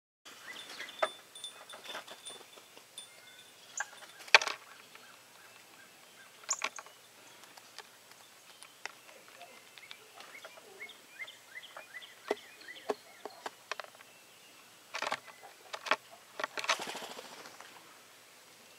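A blue jay pecking at cookie crumbs and peanuts on a windowsill: irregular sharp taps and clicks of its beak, the loudest about four seconds in. Faint bird chirps sound in the background, and a quick flurry that fits wingbeats comes near the end as the jay leaves.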